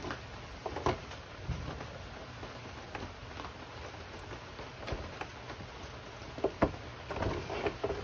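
Steady patter of rain with a few scattered sharp clicks and light knocks, a wiring plug and its cable being tugged through the motorcycle's plastic panels; the clicks bunch up near the end.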